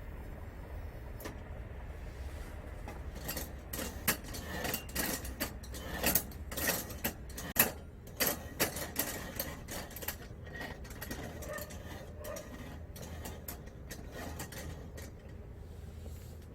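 Scattered clicks, knocks and rustling of objects being handled, thickest in the middle with one sharper knock, over a steady low hum.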